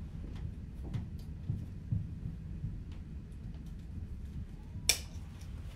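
A soft-structured baby carrier's straps and webbing being handled and adjusted: low rustling and bumping with a few soft clicks, and one sharp click near the end.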